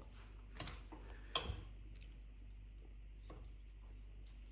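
Quiet room tone with a steady low hum and a few faint short clicks, the sharpest about a second and a half in.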